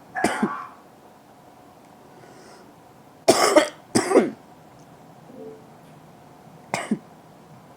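A man coughing and gagging in four short fits, the middle two the loudest, as a retching reaction just after licking what he presents as his own feces.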